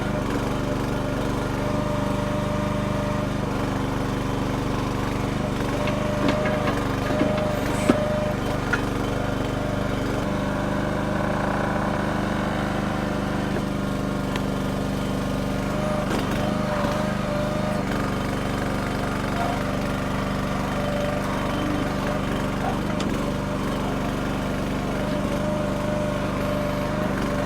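Red Rock mini backhoe's small gas engine running steadily as the hydraulics are worked, its note shifting a couple of times. A few short clanks sound about six to nine seconds in.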